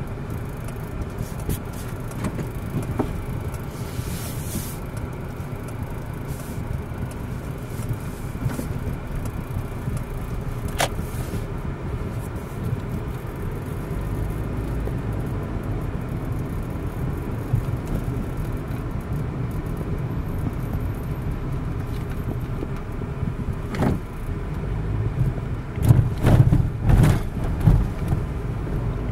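Inside a moving car: a steady low engine and tyre rumble. Two sharp clicks come partway through, and a run of louder low thumps near the end.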